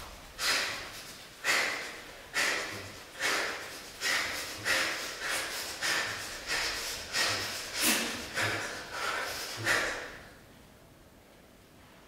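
Sharp, forceful breaths from a performer, about one a second in a steady rhythm, stopping about ten seconds in.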